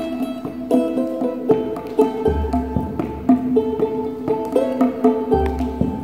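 Improvised music on a plucked string instrument: a quick stream of picked notes over a steady held low note. Deep bass notes come in about two seconds in and again near the end.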